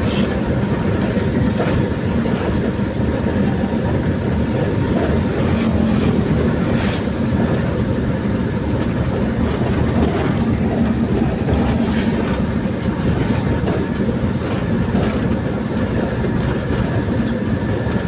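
Steady rumble of a moving vehicle travelling along a concrete highway, engine and road noise, with a few faint ticks.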